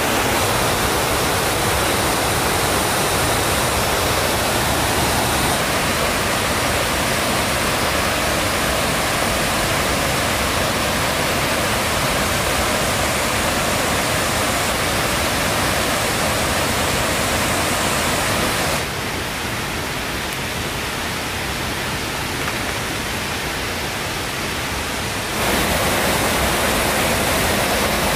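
Steady rushing noise, which turns quieter and duller for about six seconds about two-thirds of the way through.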